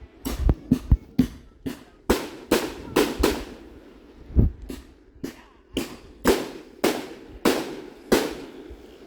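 Fireworks display: a rapid, uneven run of aerial shell bursts, about two loud bangs a second, some trailing off in a short rumble.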